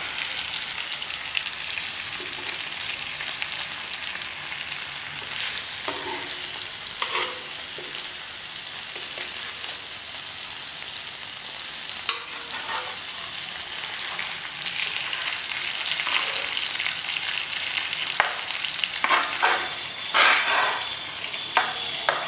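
Whole fish frying in oil and masala gravy in a wide pan with a steady sizzle, the dish now fully cooked. A metal spoon scrapes and taps the pan now and then, more often in the last few seconds.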